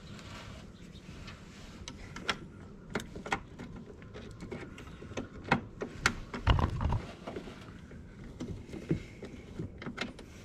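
Irregular clicks and knocks of parts and tools being handled during hands-on reassembly work on a truck's blower motor area, with a heavier thump about six and a half seconds in.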